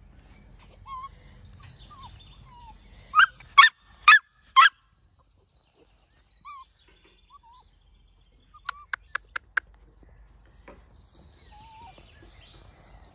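Animal calls: four loud calls in quick succession, then five short, sharp calls in a rapid run a few seconds later, with faint short chirps in between.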